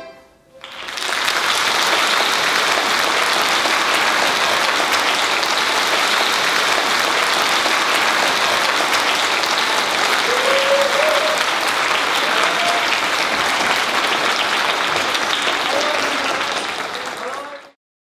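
Theatre audience applauding, rising just after the music stops and holding steady, then cutting off suddenly near the end.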